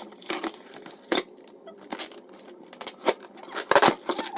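A cardboard shipping box being handled for unboxing: a string of sharp taps, knocks and scrapes, with the loudest cluster near the end.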